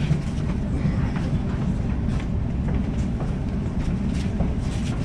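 Sydney suburban electric train running along the track: a steady low rumble with faint scattered clicks.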